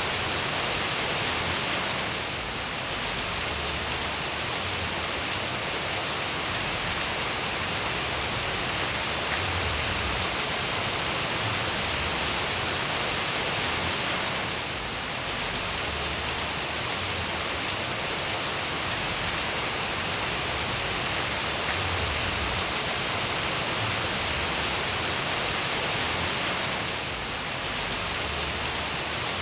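Steady, dense rain falling, an even hiss with no single drops standing out; the level dips briefly three times, about every twelve seconds.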